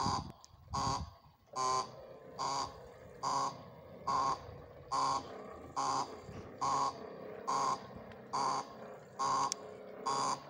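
Railway level-crossing warning signal sounding a repeated electronic ding, a little faster than one a second. A vehicle's low rumble dies away in the first second or so.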